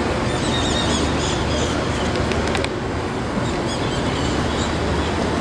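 Steady outdoor background noise, a low hubbub with a few faint high chirps now and then and some light clicks about halfway through.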